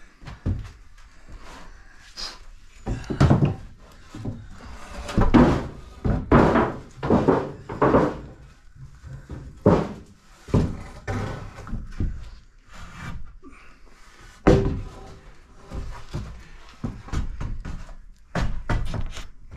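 Irregular wooden thumps and knocks as a 2x4 brace post is stood upright between floor and ceiling and knocked tight. The hits are heaviest in a cluster a few seconds in.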